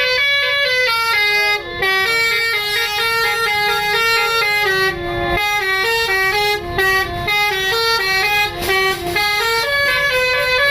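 Telolet 'basuri' multi-note musical bus horn playing a tune of held notes that step up and down, with a few short breaks.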